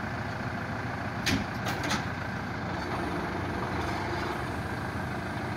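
Diesel engines of a Komatsu WB93R backhoe loader and a Bobcat 319 mini excavator running steadily, with two brief sharp noises about a second and a half in.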